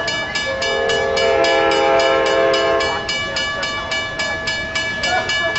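Horn of the approaching Amtrak Pacific Surfliner train sounding one long chord of several notes, about two and a half seconds, over a bell ringing steadily at about five strokes a second.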